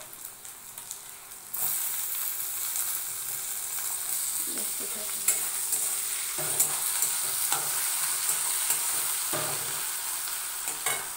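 Onions frying in oil in a karahi, the sizzle jumping sharply louder about a second and a half in as chopped tomatoes and green chillies go into the hot oil. Then the frying mix is stirred, a metal spatula scraping and clicking against the pan.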